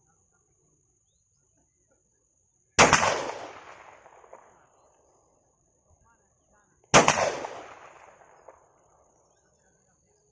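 Two single gunshots about four seconds apart, each followed by an echo that dies away over about a second and a half.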